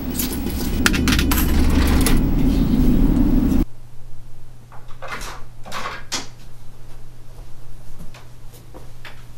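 Clicks and clatter of coins and goods being handled at a convenience-store counter over a loud low rumble. The rumble cuts off suddenly about three and a half seconds in, leaving a quieter steady low hum with scattered soft knocks and clicks.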